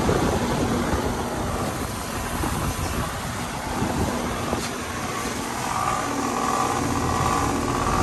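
Steady mechanical hum and whoosh of a running outdoor heat pump unit. A rougher buzzing tone joins about two thirds of the way through.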